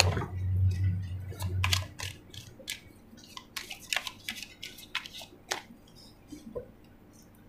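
A deck of oracle cards being shuffled by hand: a quick run of card clicks and flicks that thins out after about five and a half seconds. A low hum sits under the first two seconds.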